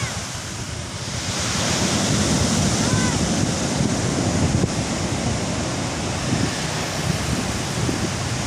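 Ocean surf breaking and washing onto the beach, swelling louder about a second and a half in, with wind buffeting the microphone.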